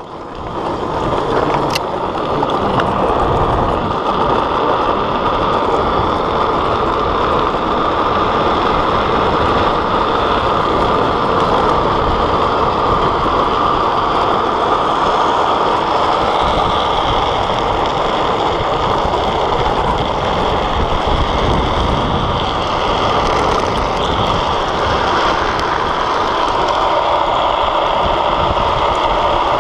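Steady rush of wind on the microphone and the rumble of a drift trike's wheels on asphalt at downhill speed, heard from the trike itself. It builds over the first couple of seconds, then holds even.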